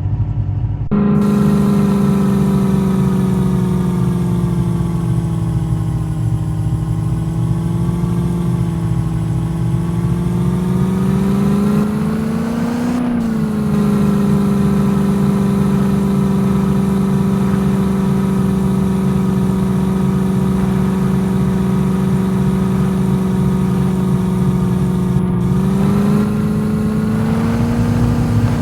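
Jeep engine running steadily under load, its pitch drifting with the revs, climbing to a higher rev about halfway through and again near the end.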